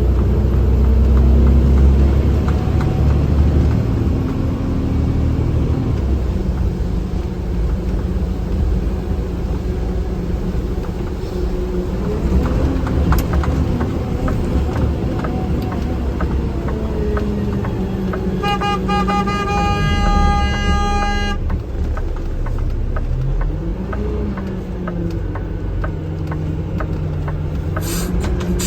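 Truck engine running under way, heard from the cab, its pitch rising and falling as it changes speed. A vehicle horn sounds once for about three seconds, about two-thirds of the way through.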